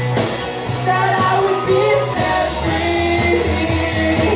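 Live worship music: a band with bass and drums accompanying sung melody, with a steady beat.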